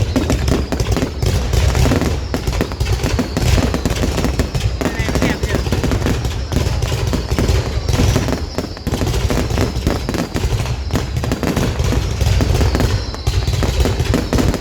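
Fireworks going off without pause: a dense rapid crackle of bangs, with a few descending whistles.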